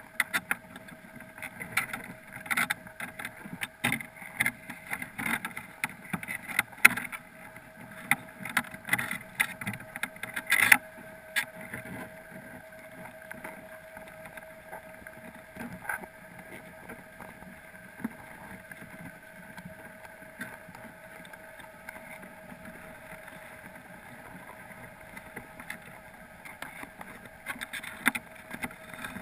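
Underwater sound through a GoPro's waterproof housing inside a crab pot: a busy run of sharp clicks and taps for about the first ten seconds, then only scattered ticks, with more again near the end, all over a steady hum. The clicks fit Dungeness crabs' legs and shells knocking against the camera housing and the pot.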